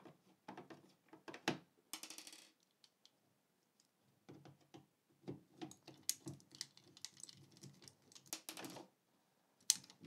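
Hand screwdriver turning out the screws of a plastic outlet faceplate and the plate being handled off the wall: irregular small clicks, taps and scrapes, with two short rasping stretches, about two seconds in and again around eight seconds in.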